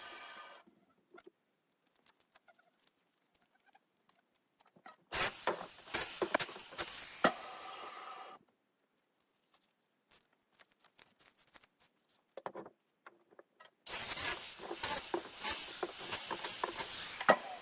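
Circular saw (skill saw) cutting small crooked tree trunks into firewood lengths. One cut trails off right at the start, another lasts about three seconds from about five seconds in, and a third starts about fourteen seconds in. Between the cuts there are faint knocks of wood being handled.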